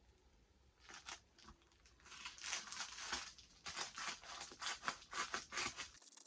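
Delivery parcel packaging being torn open by hand: a quick run of ripping and crinkling noises that starts about a second in.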